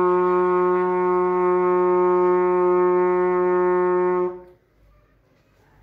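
Trumpet holding one long, steady low note in the fifth valve position (second and third valves) at the end of a lip-slur flexibility exercise, cutting off about four seconds in.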